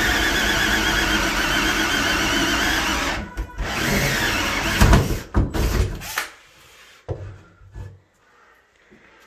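Power drill boring into a fibreglass bathtub, its motor whining with a wavering pitch; it stops about three seconds in, runs again briefly, then a few sharp knocks and clatters follow before it goes quiet.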